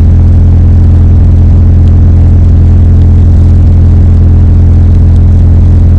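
A loud, steady low hum with a single unchanging pitch.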